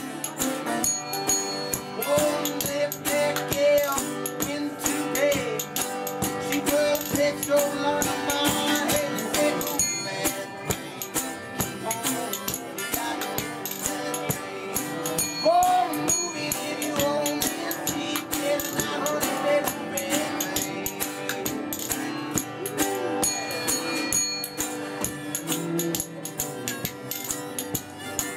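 Instrumental folk-blues tune: two acoustic guitars strummed and picked, a harmonica playing held and bending notes, and spoons clicking a fast, steady rhythm.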